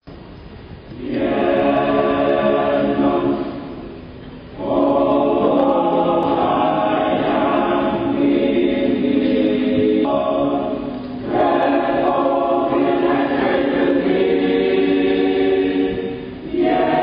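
Choir singing in long, sustained phrases, with short breaks between them about four seconds in, around eleven seconds and near the end.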